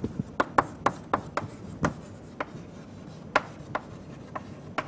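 Chalk writing on a blackboard: short taps and scratchy strokes at an uneven pace, several close together at first, then more spaced out.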